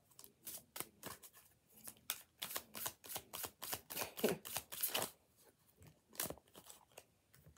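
Tarot cards being shuffled by hand: a long, quick, irregular run of crisp card snaps and slides that thins out near the end.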